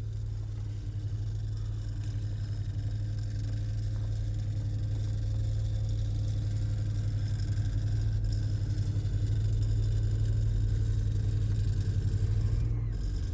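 Skoda Kushaq heard from inside the cabin: a steady low engine drone with a fast buzzing rattle from loose interior trim vibrating against the door, slowly getting louder.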